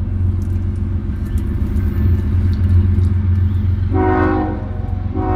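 Diesel freight locomotives rumbling low on their approach, with the air horn blowing for a grade crossing: one short blast about four seconds in, and the next blast starting right at the end.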